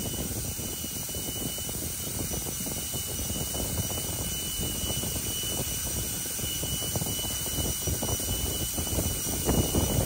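Steady turbine-type roar with a thin, high, steady whine over it, with rough low rumbling on the microphone that grows louder near the end.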